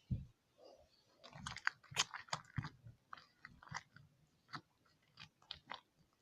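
Sticky glitter-glue slime being kneaded and squeezed by hand as activator is worked in, giving small irregular squelching clicks and pops.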